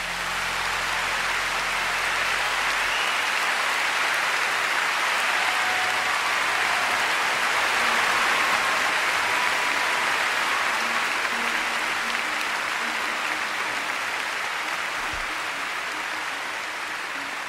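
Audience applause that swells in as the last low chord of the song's accompaniment dies away in the first few seconds. It then goes on steadily and eases off a little near the end.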